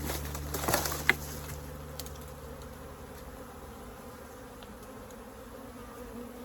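Honeybees buzzing steadily, with a few crackles and a sharp snap about a second in.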